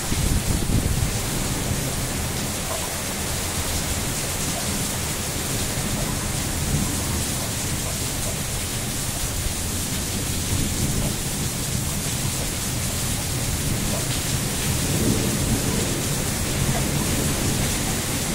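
Steady heavy rain falling, an even hiss, with a low rumble swelling about a second in and again near the end.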